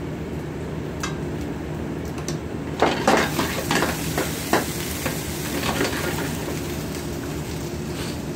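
Onions, garlic and ginger sizzling in an oiled pan over a gas burner, stirred with a metal utensil: a run of scrapes and clanks against the pan from about three to six seconds in. A steady low hum runs underneath.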